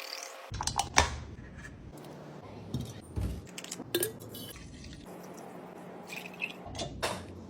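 Food containers and jars being handled and set down while restocking a fridge: a scatter of light clicks and knocks with some liquid dripping and sloshing.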